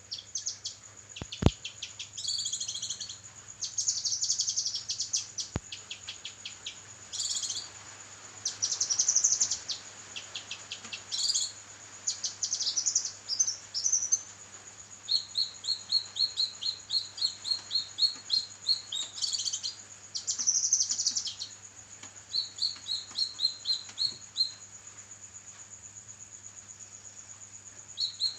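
A kinoi songbird singing on and on, used as a training recording for cage birds: rapid high trills and chattering phrases, with runs of quick repeated notes at about five a second. A steady high whine and a low hum run underneath, and a sharp click sounds about a second and a half in.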